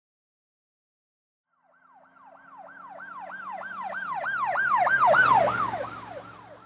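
An emergency vehicle siren on a fast yelp, about three rising-and-falling sweeps a second, over a low engine rumble. It starts about two seconds in, grows louder as the vehicle approaches, then fades with its pitch dropping as it passes.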